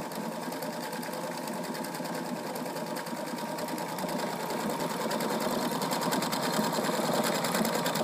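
Husqvarna Viking Designer Diamond Royale sewing machine running steadily, sewing a side-motion appliqué stitch. It makes a rapid, even rhythm of needle strokes over a faint steady motor whine, getting a little louder about halfway.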